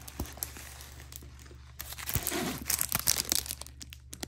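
Clear plastic film on a diamond painting canvas crinkling as the canvas is handled and lifted, with a louder stretch of crackling about halfway through.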